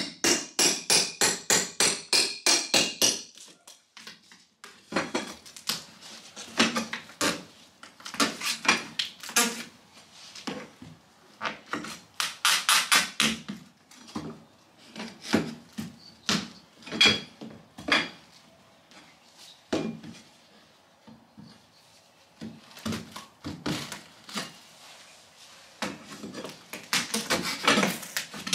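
A hammer striking rapidly, about three blows a second, for the first few seconds, then scattered knocks, scrapes and cracks of hammer and pry bar working wooden baseboard trim loose from the wall. Quick hammering starts again near the end.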